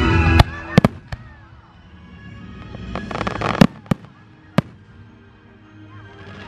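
Aerial fireworks shells bursting with sharp bangs: several in the first second, a dense crackling about three seconds in, then a few more bangs, over background music.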